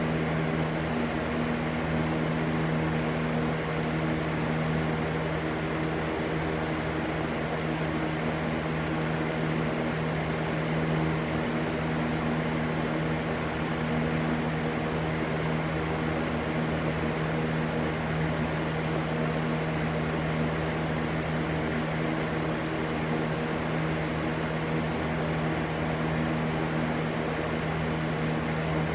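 Electric fan running steadily: an even rushing of air over a constant low motor hum.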